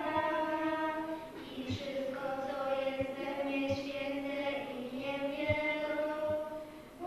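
A small group of children singing together in slow, long held notes, as in a sung psalm or hymn at mass.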